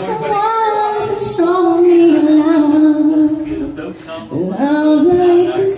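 A woman singing long held notes into a microphone, with no clear instrument behind her. The voice breaks off about four seconds in and comes back in a new rising phrase.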